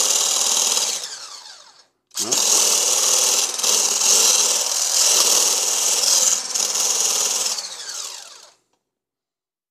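Electric stick blender with its whisk attachment whipping egg whites in a plastic beaker, the motor whirring steadily. It winds down and stops about a second in, spins back up at two seconds, and runs until it winds down and stops near the end. The egg whites are nearly whipped, thick but short of stiff peaks.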